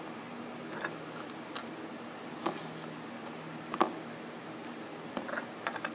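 Small plastic Littlest Pet Shop figurines clicking and tapping as they are set down one by one on a wooden surface, about eight light taps with the sharpest a little under four seconds in, over a steady fan hum.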